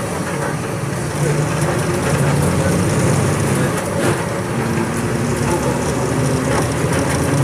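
Volkswagen 17.230 EOD bus diesel engine running steadily, its note shifting slightly in pitch as the bus drives.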